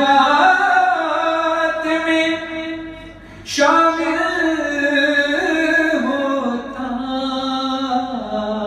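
Devotional singing by a solo voice through a microphone, with no instruments: long held notes that bend and ornament, with a short break about three seconds in before the next phrase begins.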